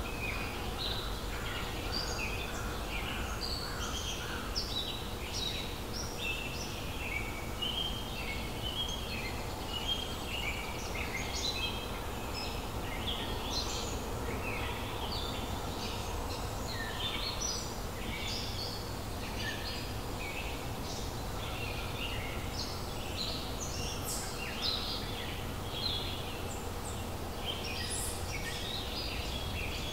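Many songbirds chirping and trilling in quick, overlapping short calls, over a steady low background rumble.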